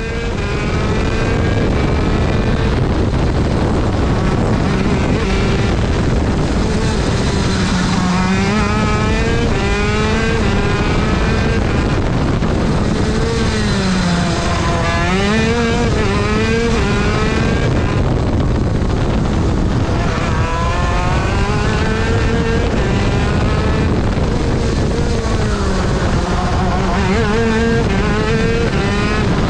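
125cc two-stroke KZ shifter kart engine at racing pace, heard onboard; its pitch climbs and drops again and again as the driver accelerates out of corners and lifts into them, with runs of quick rises as it is taken up through the gears.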